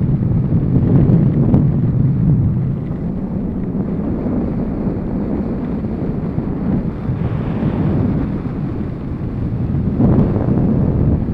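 Wind buffeting an action camera's microphone during a downhill ski run, a loud, gusty rumble that swells about a second in and again near the end, with the hiss of skis sliding over groomed snow underneath.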